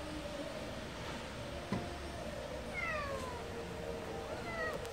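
A cat meowing twice: a call that falls in pitch about three seconds in, and a shorter one that rises then falls near the end. A brief click comes just under two seconds in.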